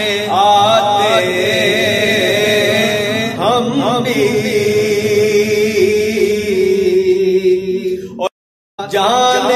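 A man's solo voice chanting a naat, the Urdu devotional poem in praise of the Prophet, in long held notes with wavering ornaments. The sound cuts out completely for about half a second near the end.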